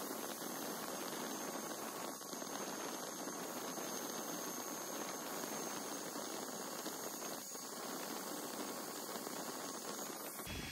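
Creality Falcon 2 40-watt laser engraver running a cut: a steady hiss from its air assist and head fan, with a faint high whine and a couple of faint ticks.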